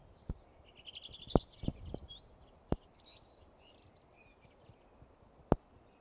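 A small songbird sings one phrase: a fast trill of repeated high notes, then a string of varied twittering notes, ending about four seconds in. Several sharp clicks stand out louder than the song, one near the end.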